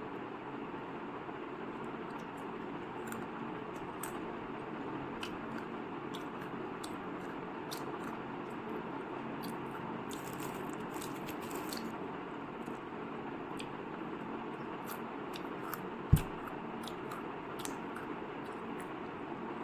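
Steady background noise with scattered small clicks and one sharp knock about 16 seconds in.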